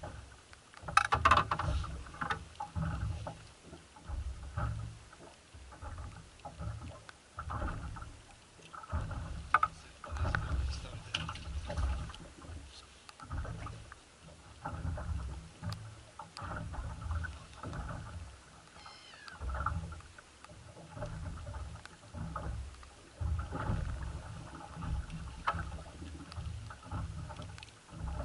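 Wind buffeting the microphone and water lapping against a small boat's hull, in irregular surges, with a sharp loud clatter about a second in.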